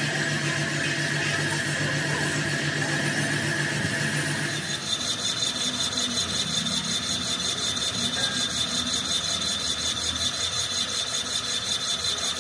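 Machine tool working an engine block's cylinder: a steady machine hum with fixed tones for the first few seconds, then, about five seconds in, a rapid rhythmic rasping of about four or five strokes a second over a high steady whine.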